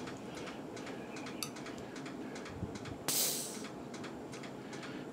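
Small clicks and rattles of a pressure gauge's hose and fittings being handled, then a short hiss of air a little after three seconds in.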